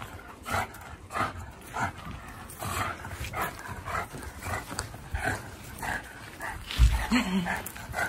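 English bulldog growling and grunting in short bursts, a little more than one a second, while tugging on a rope toy, with a loud thump near the end.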